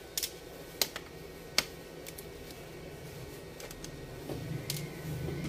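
Small sharp clicks and taps of a screwdriver loosening the screws on a laptop's bottom cover. There are four clear clicks in the first two seconds and fainter ones later, over a steady low hum.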